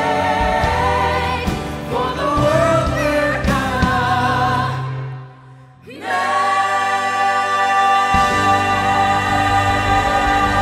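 Lead singers and a choir singing with band accompaniment, live. The sound nearly drops out about five seconds in, then voices and band come back on long held notes of the song's last line.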